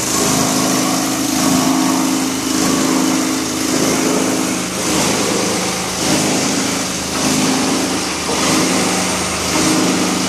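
Plastic crusher (granulator) with a 37 kW motor running while it chops plastic sheet. It makes a loud, steady machine drone with a constant hum and a hiss, swelling and easing about once a second.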